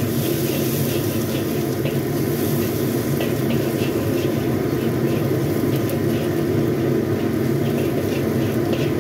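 Minced aromatics frying in oil in a carbon-steel wok, stirred with a metal spatula that scrapes the pan in many short strokes, over a steady low rumble. The frying is at the stage of cooking until fragrant.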